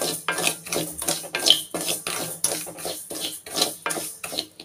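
Dry raw rice grains being stirred and scraped around an aluminium kadai with a flat-bladed spatula during light dry-roasting: a quick run of rasping strokes, about three a second.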